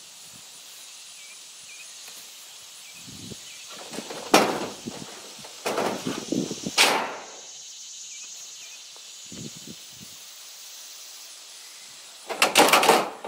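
Sheet-steel panels cut from a sliding barn door, fixed to wooden slats, being lifted and set down. There is a sharp knock about four seconds in, a few seconds of clattering and rattling just after, and another loud rattling clatter near the end.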